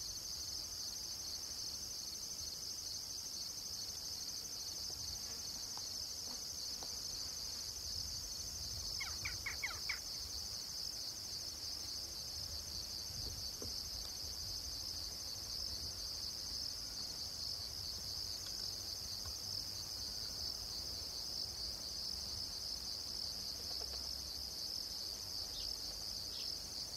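A steady, unbroken, high-pitched chorus of insects. A few short chirps come briefly about nine seconds in.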